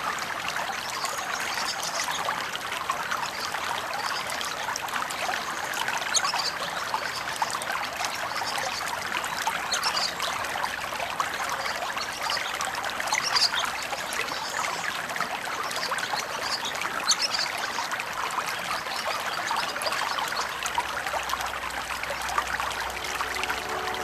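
Shallow river water trickling and bubbling close to the microphone, a steady wash dense with small crackles and splashes.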